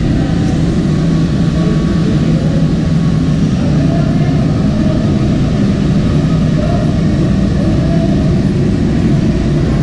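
Ship's engine-room machinery running: a loud, steady, unbroken drone with a low hum.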